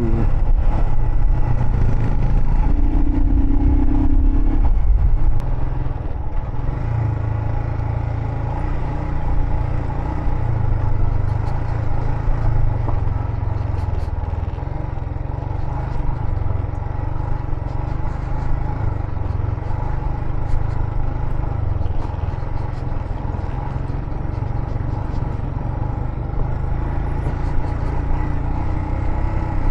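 Royal Enfield Himalayan motorcycle being ridden along a mountain road: its engine runs steadily under heavy wind noise on the microphone. A brief held tone sounds about three seconds in.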